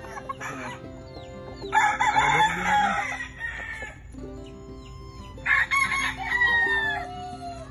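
Roosters crowing: two crows about four seconds apart, each lasting about a second and a half.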